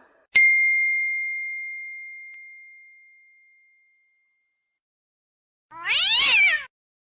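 A ding sound effect: a bell struck once, ringing one clear high tone that fades away over about three seconds. About six seconds in comes a short cat meow.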